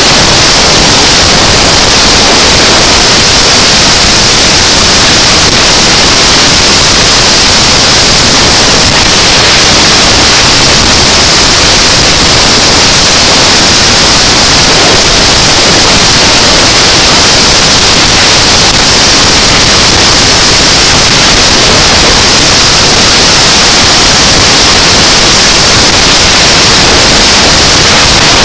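Loud, steady rushing noise of wind and road on the microphone of a motorcycle running at highway speed. It is even and unbroken, with no clear engine note standing out.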